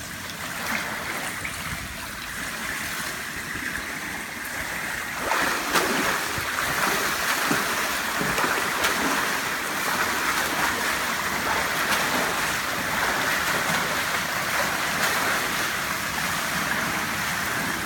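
Water splashing and churning as a swimmer in short fins kicks and strokes along the pool, louder from about five seconds in.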